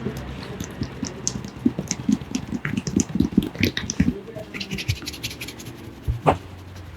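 Barber's hands working over a person's head and hair during a head massage: scratchy rubbing and a quick run of taps in the middle, with one sharp click about six seconds in.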